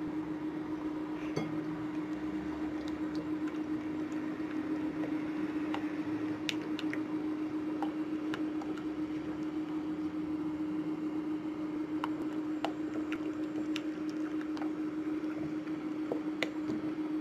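Silicone spatula stirring white glue and orange paint in a glass bowl: soft squishing with scattered light taps, over a steady low hum.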